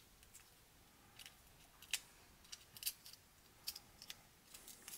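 Faint scattered crinkles and clicks as a pocket-knife blade slits open the foil wrapper of a small candy packet.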